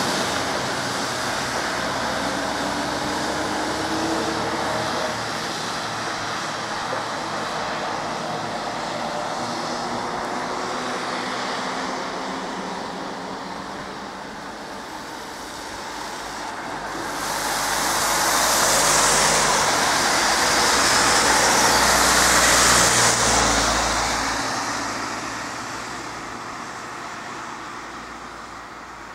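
Road traffic on wet asphalt: a truck running as it pulls away, then a car passing close with a loud hiss of tyres on the wet road that swells about two-thirds of the way in and fades toward the end.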